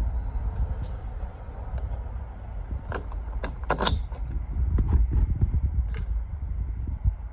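Snowmobile ignition key and coiled tether cord being handled: a few sharp clicks and rattles, with a quick cluster of clicks near the middle, over low rumbling handling noise.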